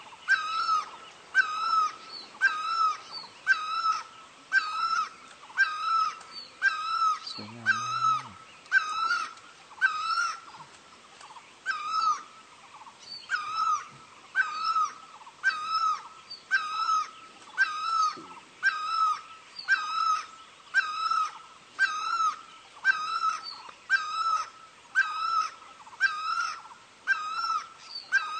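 Hmong raj, a bamboo free-reed pipe, sounding the same short note with a bend in its pitch over and over, a little more than once a second.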